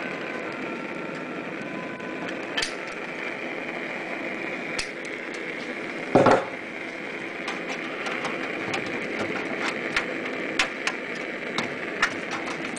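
Sheet zinc being worked by hand with pliers: scattered sharp metallic clicks and taps, with one louder knock about six seconds in and quicker small clicks near the end, over a steady background hum.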